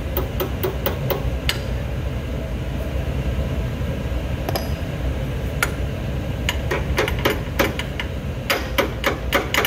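Sharp metallic clicks and clinks from hand tools working the bolts of a Zamboni ice resurfacer's blade bearing housing, irregularly spaced and coming faster in the last three seconds, over a steady low rumble.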